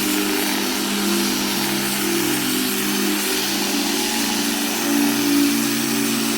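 A power tool's motor running steadily.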